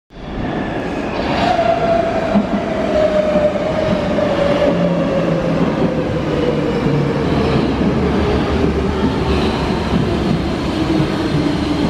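Munich U-Bahn train running along an underground station platform: a steady rumble of wheels on rails under a motor whine that falls steadily in pitch as the train slows to pull in.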